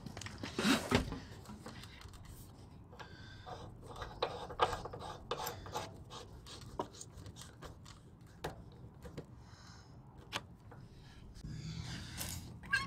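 A rubber garden hose being handled and its coupling threaded onto a pressure washer's water inlet: scattered light clicks and rubbing, with a brief clatter about a second in.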